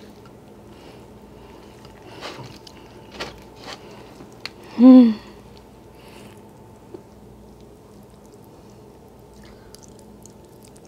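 Soft wet squishing and small clicks as a piece of lobster meat is dipped and worked through thick melted cheese sauce by hand. A brief voiced exclamation about five seconds in is the loudest sound.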